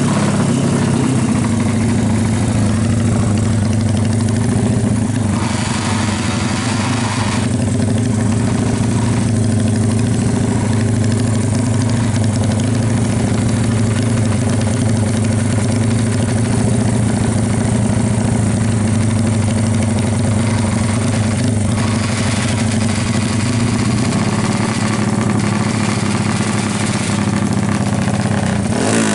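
Bored-up 273 cc Honda Tiger four-stroke single-cylinder engine idling steadily at an even pitch.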